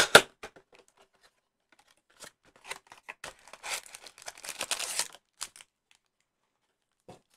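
Cardboard trading-card blaster box being opened: a sharp snap at the start, then the cardboard flap tearing open and the stack of foil packs sliding out with rustling and scraping. The noise dies away about five and a half seconds in.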